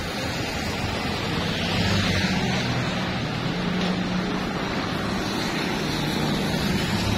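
Motorcycle engine running steadily on the road, with a low engine hum under a rush of road and wind noise.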